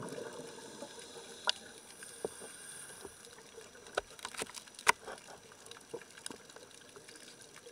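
Underwater ambience on a scuba dive: a diver's exhaled regulator bubbles fade out in the first second, leaving a faint steady hiss broken by scattered sharp clicks, the loudest about a second and a half in and near the middle.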